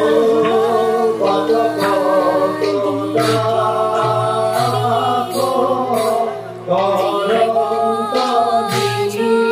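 Music: a slow sung melody with wavering held notes over a steady low drone.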